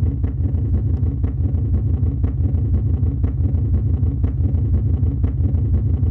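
Sonified stellar oscillations of a red giant star: starlight pulsations shifted up into the audible range, heard as a loud, steady, very deep rumbling drone with faint ticks about once a second. Its much lower pitch than the Sun's sound reflects the star's late, terminal stage of evolution.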